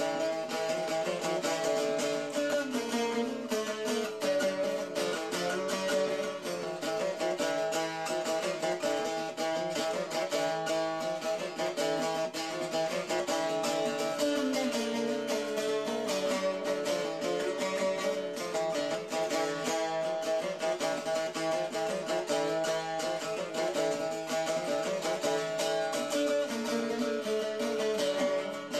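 Šargija, a long-necked fretted folk lute, playing a fast kolo dance tune: quick, even picked notes over a steady drone note.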